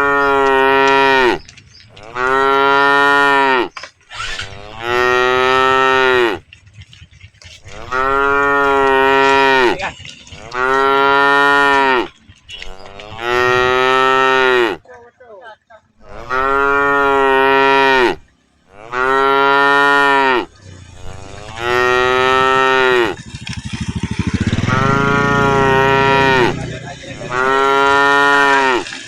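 Cattle mooing over and over, about eleven long moos each lasting a second or two, coming every two to three seconds with short pauses between them.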